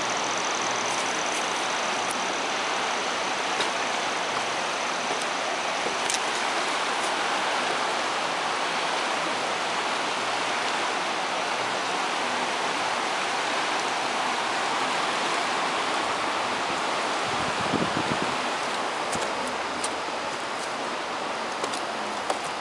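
Fast floodwater of a creek in spate, swollen by heavy rain, rushing past in a steady loud roar of moving water. It fades slightly near the end.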